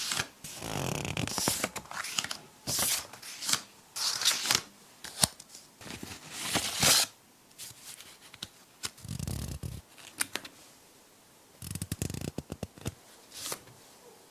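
Stationery packaging being handled close up: irregular crinkling and rustling of plastic and paper, with sharp taps and clicks that grow sparser and quieter in the second half.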